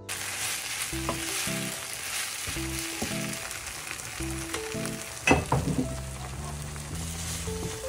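Fried rice sizzling in a frying pan as it is stirred with a spatula, a steady hiss with a couple of sharp knocks about five seconds in.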